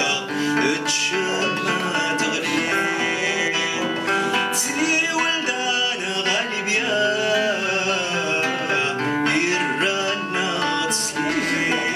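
A man singing with his own acoustic guitar accompaniment: a male voice carrying a melody over played guitar chords.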